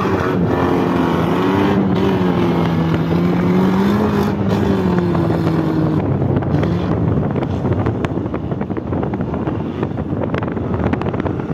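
Engine of an off-road 4x4 competition vehicle running with a steady drone that rises a little and then falls over the first half. After about six seconds the drone gives way to a rough, crackling noise.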